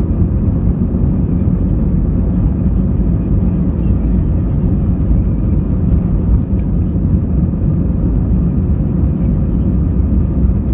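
Steady low rumble of engine and airframe noise heard inside the cabin of an Airbus A320 airliner, with no rise or fall in pitch.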